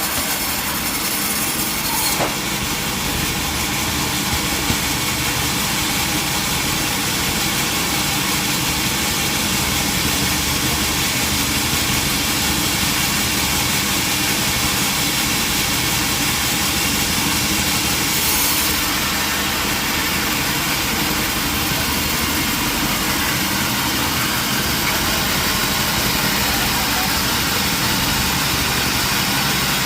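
Old sawmill's engine running steadily, an even mechanical drone with a single brief knock about two seconds in.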